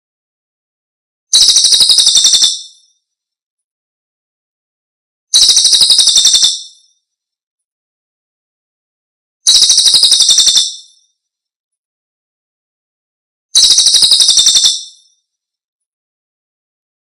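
Looped recording of a cililin bird's call, used as a lure and tutor call for songbirds. It is a high-pitched, rapidly pulsing trill about a second long, repeated four times roughly every four seconds, with silence between.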